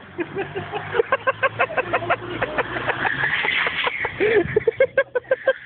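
A Renault Kangoo van drives past with its engine as a steady low hum, under people's voices in quick, repeated short bursts.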